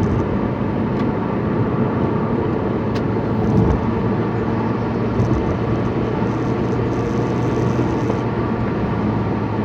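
Steady car cabin noise while driving: the engine's low hum under an even rush of tyre and road noise.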